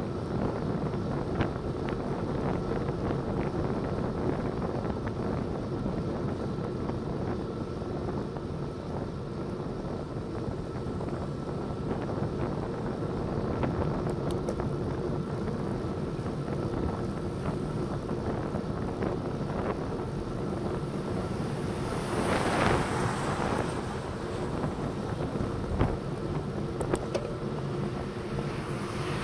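Wind rushing over a bicycle-mounted camera's microphone with steady road rumble while riding, and a louder rushing swell about 22 seconds in.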